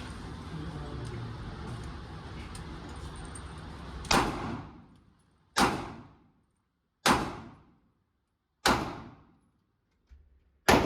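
Five single gunshots from a firearm being fired slowly, about a second and a half apart, each ringing out briefly. They follow a few seconds of steady background noise.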